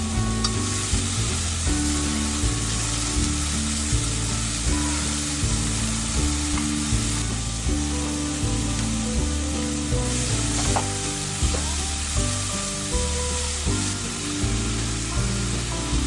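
Food sizzling in a frying pan while being stirred, a steady hiss throughout, under background music with a regular beat.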